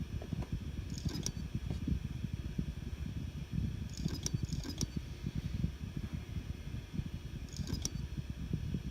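Seagate Barracuda Pro 8 TB hard drive making short metallic clicks, like scissors closing, in small groups about every three seconds over a low rumble. Seagate says this clicking is not supposed to be there, a sign the drive is faulty.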